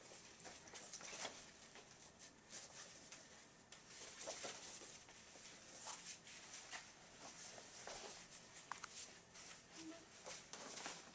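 Near silence, with faint rustling and a few soft clicks from a backpack and clothing being handled as a child's backpack is put on.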